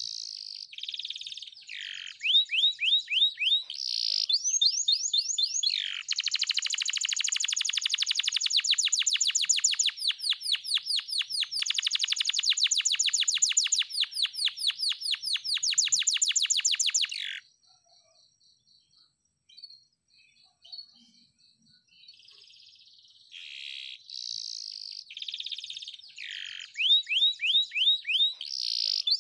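Domestic canary singing: high chirps and short trills, then a long, very rapid rolling trill lasting about ten seconds. It breaks off into a few seconds of quiet, then the bird starts again with chirps and trills near the end.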